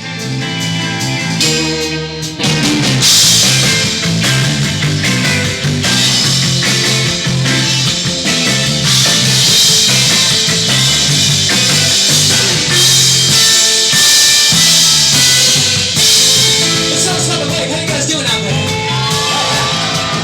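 Loud rock band playing: a repeating bass line with drums, the cymbals crashing in about three seconds in, and singing coming in near the end.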